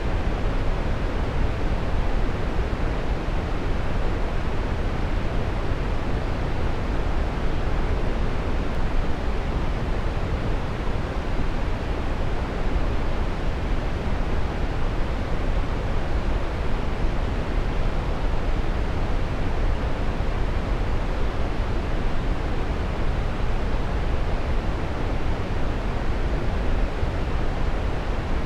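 Waterfall: a steady rush of falling water, an even deep hiss that holds constant throughout.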